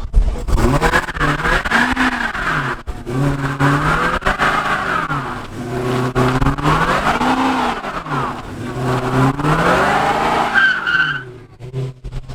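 A car engine revving up and down repeatedly over the squeal of spinning tyres, as in a burnout, rising and falling in pitch several times. It drops away near the end.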